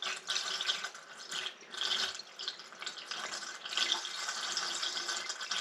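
Coolant pouring from a plastic jug into a funnel in a flathead engine's cylinder head, splashing and gurgling unevenly as the engine block is filled with coolant.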